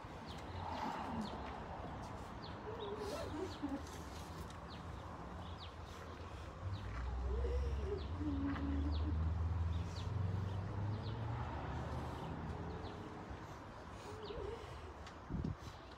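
Shoes clicking and scuffing on brick paving as a small group of people moves about, with a low rumble that swells for several seconds in the middle.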